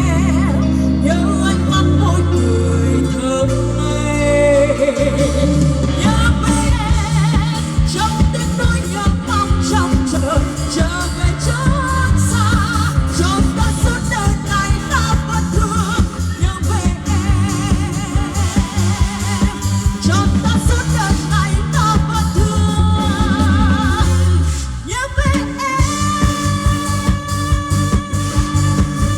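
A woman singing a Vietnamese pop song over a backing track with bass and a steady beat, played loud through a PA sound system. About 25 seconds in the beat drops out briefly and the arrangement changes.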